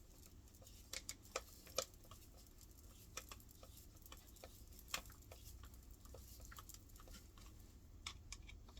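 Faint, scattered clicks and taps of washing machine parts being handled and fitted together, a handful of sharp ticks spread out over a near-silent room.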